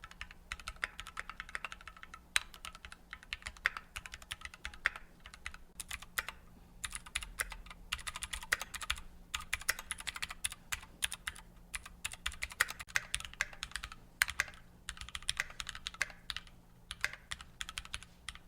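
Typing on a Keychron Q-series mechanical keyboard, played in turn on factory-lubed Gateron red, blue and brown switches to compare their sound: fast runs of key clicks, broken by a few short pauses.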